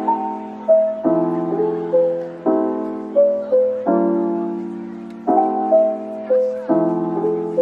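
Background music on piano: chords struck about every second and a half, with a short melody of single notes between them.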